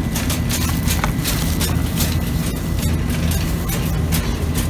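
Rustling and clicking from handling plastic packaging with a plastic-gloved hand close to the phone's microphone, over a steady low hum.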